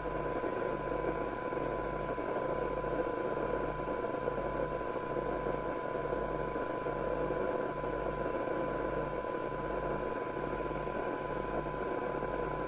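FM CB receiver hiss from an external speaker with a weak steady 1 kHz test tone just above the noise. The signal generator is set low, at about 4 dB SINAD, so the receiver's sensitivity can be measured while it is aligned. A low hum pulses underneath about once a second.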